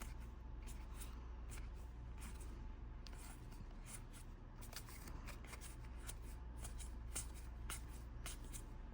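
Faint handling of trading cards: Disney Lorcana cards being slid and shuffled against each other in a series of small, irregular rustles and flicks, over a steady low hum.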